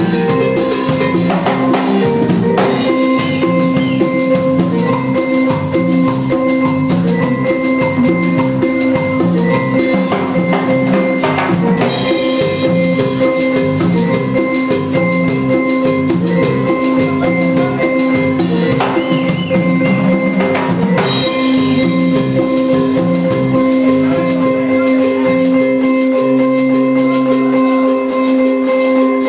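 Live norteño band playing an instrumental dance tune: a held steady tone over a repeating, bouncing bass line, with a metal güiro scraper keeping a steady rhythm.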